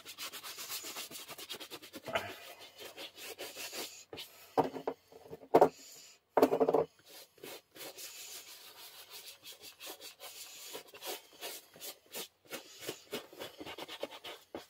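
Brush scrubbing shoe polish into leather work boots in quick back-and-forth strokes, with a few louder, harsher strokes about halfway through.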